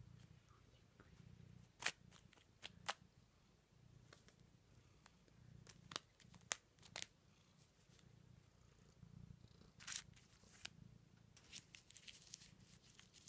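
A cat purring low and steadily, with faint, sharp crinkles of a crumpled fudge wrapper scattered through as it is dangled and batted by the cat's paws.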